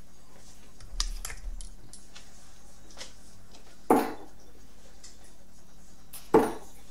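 Two sharp thuds about two and a half seconds apart, typical of steel-tip darts striking a dartboard, after a short rattle about a second in.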